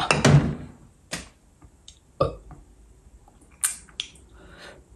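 A man's loud gasp and throat and mouth sounds right after a swig of neat vodka from the bottle, followed by a few sharp mouth clicks and a dull knock.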